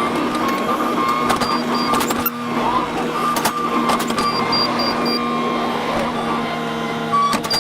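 A machine running steadily with a hum, scattered clicks and knocks, and runs of short high beeps in quick succession.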